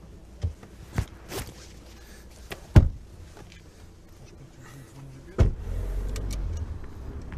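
Car doors shutting, with a loud thump about three seconds in and another about five and a half seconds in, after a few light latch clicks. A low, steady engine rumble follows the second thump as the Audi SUV pulls away.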